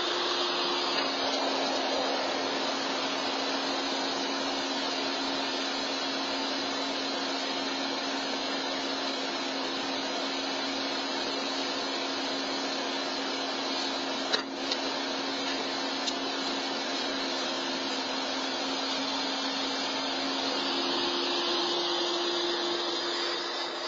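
Steady whirring hum of an idling SUV engine, with a single sharp knock about halfway through. The hum drops off near the end as the vehicle pulls away.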